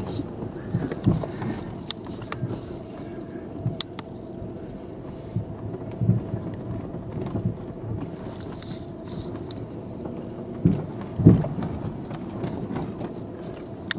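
Car driving slowly over a potholed dirt road, heard from inside the cabin: a steady engine and road hum, broken by irregular low thumps and knocks as the car jolts over the holes. The heaviest jolt comes about eleven seconds in.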